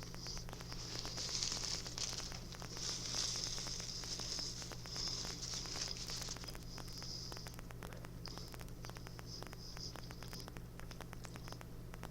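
Faint crackling and rustling close to the microphone, in swells about a second apart, then thinner scattered clicks after about seven seconds. A steady low electrical hum runs underneath.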